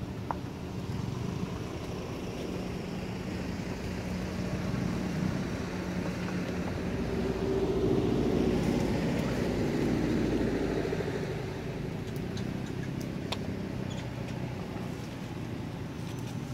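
A motor vehicle passing by: a steady engine hum that swells to its loudest around the middle and then fades away.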